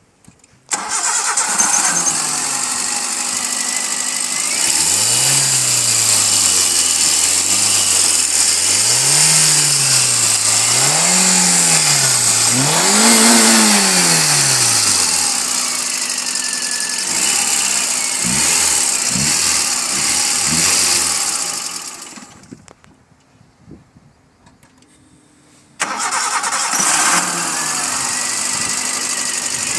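Maruti Suzuki Wagon R petrol engine on a cold start, catching just under a second in and running. It is then revved in a series of blips, each rising higher than the last. The engine dies away around 22 seconds in, and its running sound comes back abruptly near the end.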